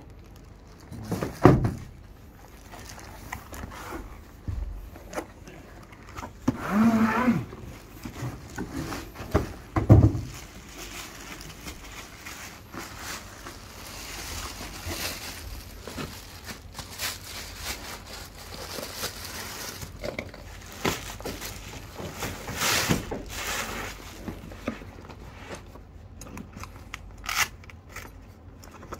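Unpacking noise: cardboard box and plastic wrap being handled, rustling and crinkling as a padded tripod bag is pulled out and unwrapped, with a few knocks, the loudest about a second and a half in and again about ten seconds in.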